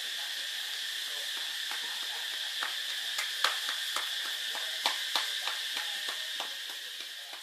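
Steady high buzzing hiss of an insect chorus, with scattered light clicks and rustles in the grass from about two seconds in.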